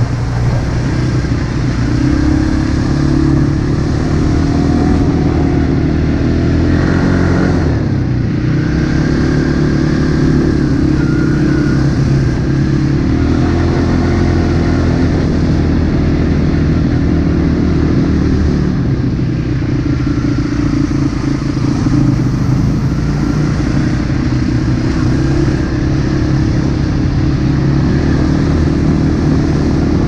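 Off-road motorcycle engine running under throttle along a dirt trail, its note dipping briefly twice as the rider eases off and then picking back up.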